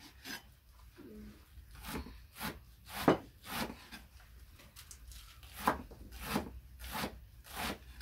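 A knife chopping pancar greens (chard-like leaves) on a cutting board: short, slow strokes about one every half second, in two runs with a pause between them.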